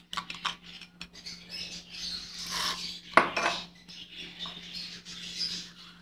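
Small utensils and containers being handled on a hard surface: light clinks and clicks, with one sharp knock about three seconds in.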